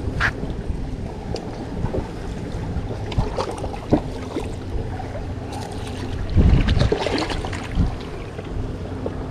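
Wind buffeting the microphone and water lapping around a small boat, over a faint steady low hum. A few short knocks and splashes come from handling a small stingray on the line, with a louder rush about six and a half seconds in.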